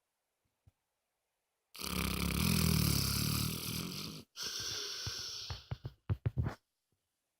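Dog snoring: after a near-silent pause, one long loud snore about two seconds in, a brief break, a second softer breath that fades, then a quick flutter of short puffs.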